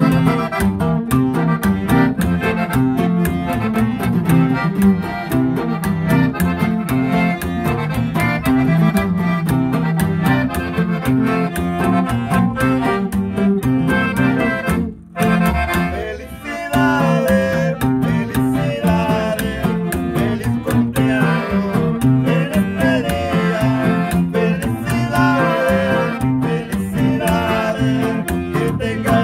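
Piano accordion and acoustic guitar playing a lively instrumental tune together, live, with a brief break about halfway through.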